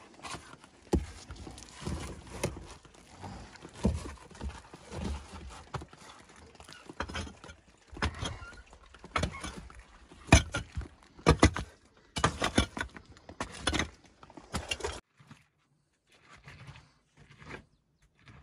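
Hand digging in a stony trench: a metal digging tool striking and scraping earth and rocks in irregular knocks, with stones being shifted. The knocking stops suddenly about fifteen seconds in, leaving only a few faint sounds.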